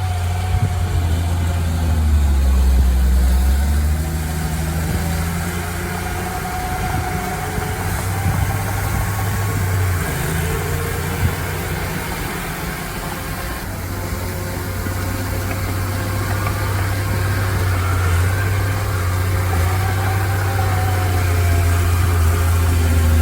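Heavy diesel engine of land-clearing machinery running steadily, a deep drone whose pitch slowly rises and falls as the load changes.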